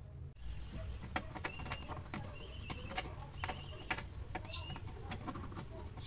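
Light, irregular clicks and taps of clear plastic refrigerator drawers and door shelves being handled, over a low hum. A few short, high, level chirps come in the middle.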